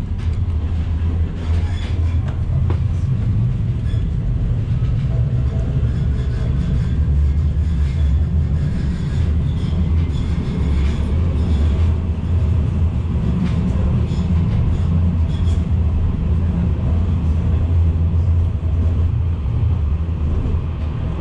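Ride noise of a T1 low-floor tram heard from inside the car as it runs along street track: a steady low rumble with a few faint clicks.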